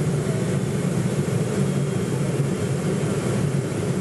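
Steady, low cabin noise of a Boeing 747 on final approach, heard from inside the passenger cabin: its Rolls-Royce RB211 turbofans running at approach power along with the rush of airflow past the fuselage.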